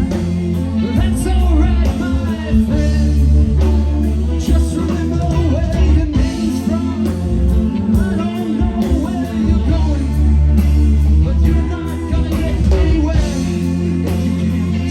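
Rock band playing live: electric guitar, bass guitar and drums, loud and steady, with a wavering lead line over a strong bass.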